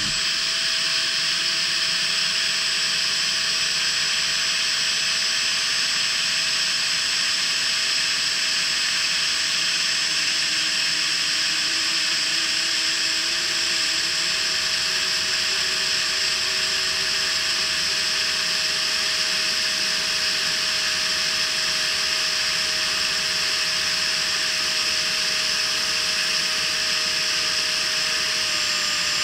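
Freewing 70 mm electric ducted fan with an inrunner motor running at flying power: a steady, unbroken whine heard close up from a camera mounted on the model jet.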